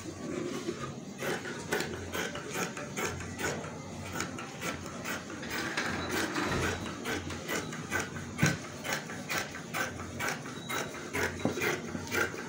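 Tailor's shears cutting through fabric: a steady run of snips, about three a second, as the blades close and open.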